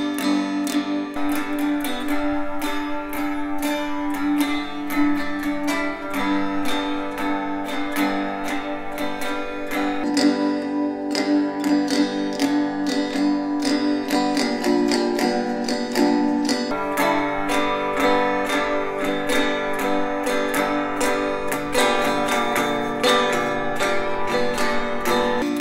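A cigar box guitar strummed in a steady repeating pattern, heard both played live and played back through loudspeakers, with a change in the sound about ten seconds in as the playback switches speakers.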